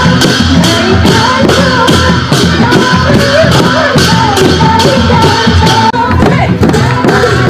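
Sakela dance music: a dhol, a two-headed barrel drum, beaten with a stick in a steady beat, with voices singing a wavering melody over it.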